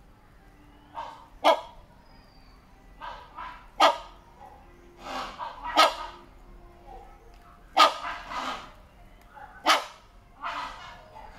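Hornbill giving loud, barking calls, about one every two seconds; each is a short, sharp note, most with a softer note just before it.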